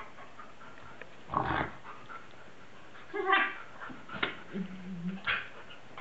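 Two dogs play-wrestling, with a few short, separate dog vocal sounds: yips, and a higher whine about three seconds in.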